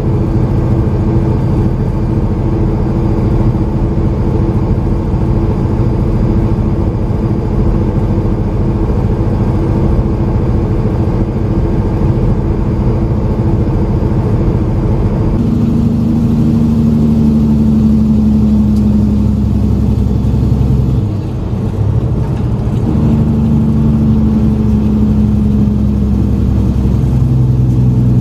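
Heavy diesel truck engine running at highway speed, heard from inside the cab. About halfway through the engine note changes to a deeper one that slowly falls in pitch, breaks off briefly a few seconds later, then picks up again as the truck slows for an exit ramp.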